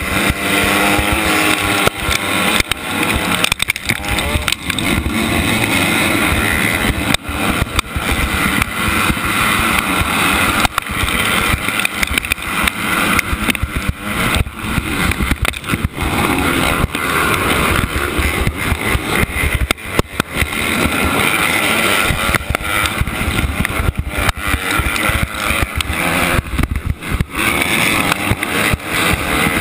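Dirt bike engine revving hard and accelerating from a motocross start, heard close up from the rider's helmet, with the engines of the surrounding pack of bikes. The engine note climbs and dips over and over, with brief drops in loudness every second or two.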